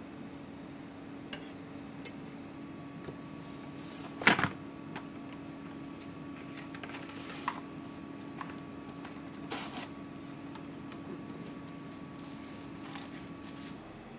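Plastic cling film being pulled out and stretched over a glass bowl, with crinkling and a few sharp snaps, the loudest about four seconds in. A steady hum runs underneath.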